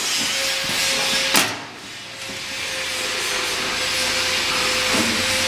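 Steady hiss of compressed air feeding a Timesaver wide belt sander's air-powered belt tensioning, with a single sharp clack about a second and a half in, after which the hiss briefly drops.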